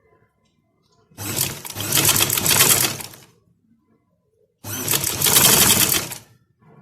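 Electric sewing machine stitching in two runs of about two seconds each, stopping briefly between them.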